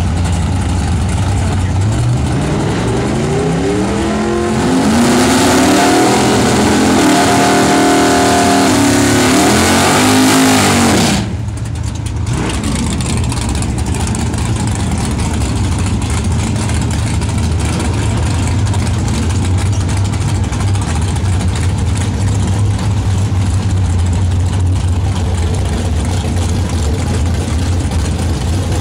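Oldsmobile drag car's engine idling, then revving up about two seconds in. From about five seconds it is held at high revs with the rear tyres spinning in a burnout, and this cuts off abruptly around eleven seconds in. The engine then idles steadily.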